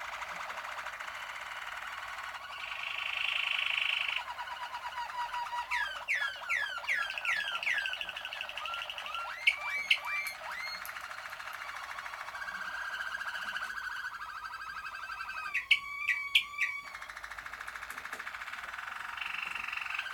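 Malinois (Waterslager) song canaries singing a continuous song that changes phrase every few seconds. It moves between steady rolling trills, runs of quick falling glides, and short sharp notes, with a cluster of spiky notes about three-quarters of the way through.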